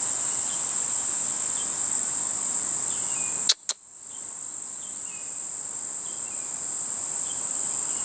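Steady, high-pitched chorus of insects. About halfway through, two sharp clicks cut in and the sound drops out, then slowly swells back up.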